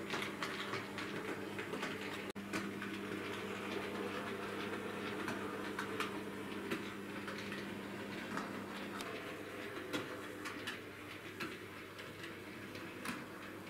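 Model railway tank locomotive (Bachmann Class 56XX, OO gauge) running on the track: a low electric-motor hum with many small irregular clicks from the wheels on the rails. One strand of the hum stops about two-thirds of the way in.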